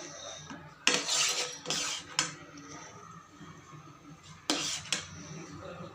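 Metal kitchen utensils clinking and scraping against a cooking pan as the hot sheera is served out, with a few sharp knocks, the loudest about one second and four and a half seconds in.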